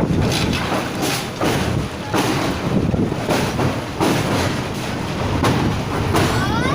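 Passenger train running, heard from aboard: a steady rumble with wheels clattering over rail joints in a regular clickety-clack, plus a brief rising whine near the end.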